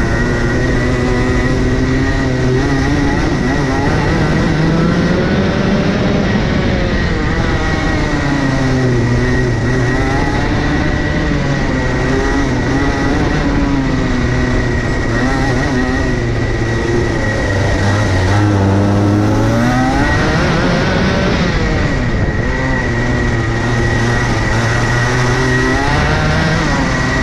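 Go-kart engine heard from on board, its pitch climbing as the kart accelerates and dropping as it lifts off, over and over every few seconds. A steady high whine runs underneath.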